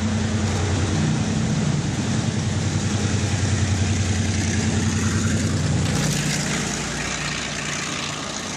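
Diesel locomotive engine running as the train approaches: a steady, loud low drone over a hiss of rail noise, its pitch shifting about six seconds in.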